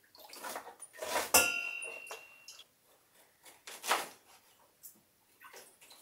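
Metal kitchenware clinking at a sink: one sharp knock about a second and a half in rings on briefly, among a few short rubbing and scraping strokes.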